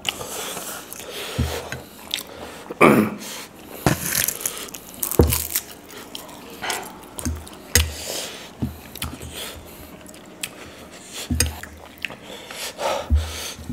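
Close-up eating of instant noodles: chewing, biting and slurping, with short clicks and scrapes of spoons and chopsticks against small bowls and a few dull low thumps.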